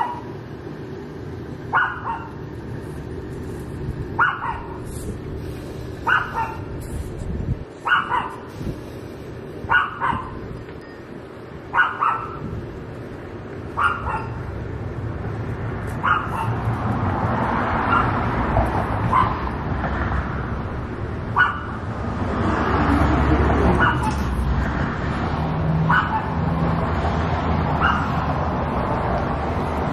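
Small curly-coated dog barking in single short barks, about one every two seconds, at a steady rhythm. From about halfway through, the steady rush of passing traffic rises under the barks, loudest a little after two-thirds of the way in.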